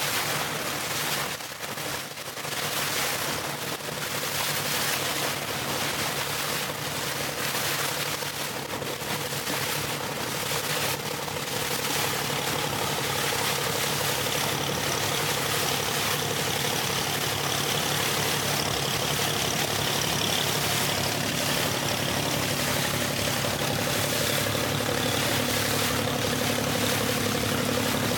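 Motorboat engine running steadily as the boat moves under way, with a rushing noise of wind and water over it.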